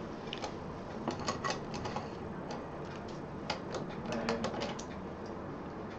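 Irregular light clicks and taps from handling fabric and parts at a sewing machine, in small clusters rather than the steady rhythm of stitching.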